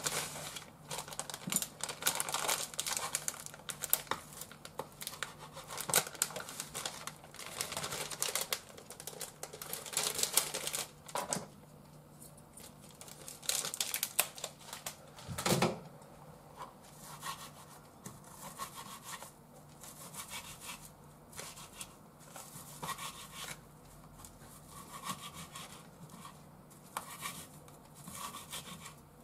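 Kitchen food preparation: a plastic food packet crinkling and rustling as it is handled, dense in the first half, then sparser knocks of a knife chopping leafy greens on a wooden cutting board toward the end.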